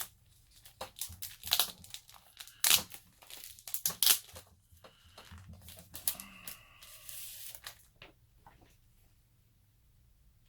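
Stiff plastic comic bags crinkling and crackling as they are handled open, one sleeve inside another, with a run of sharp crackles in the first four seconds and softer rustling that dies away after about eight seconds.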